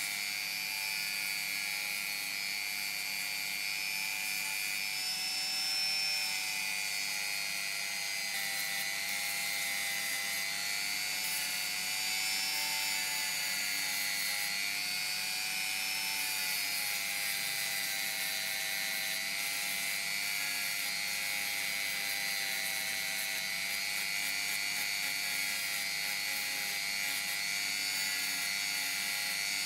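Handheld rotary tool spinning a small sanding drum against a wooden saw handle: a steady high motor whine whose pitch wavers slightly as the drum bears on the wood.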